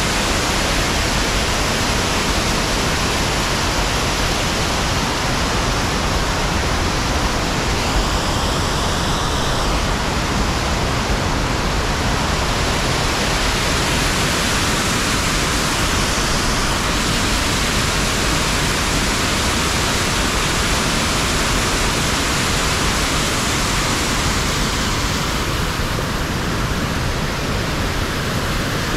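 Buttermilk Falls waterfall: a loud, steady rush of falling water with no let-up.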